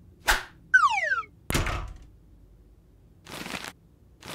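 Cartoon sound effects: a short swish, a falling whistle-like glide, then a thump that fades away, followed by two more brief swishes near the end.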